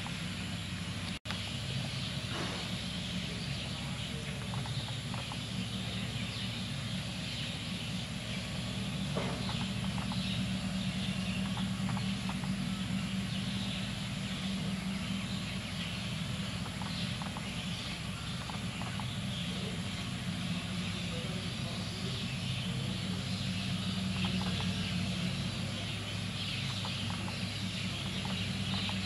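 Outdoor ambience of many birds chirping and calling over a steady low hum. The sound cuts out for an instant about a second in.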